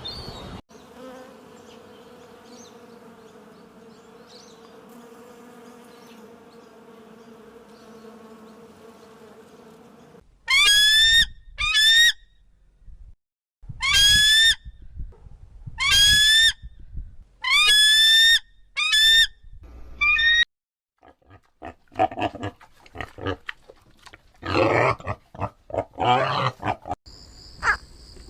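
A run of animal sounds. First comes a steady droning hum lasting about ten seconds. Then a series of short calls rises in pitch, about one a second. Rougher grunting calls close it out.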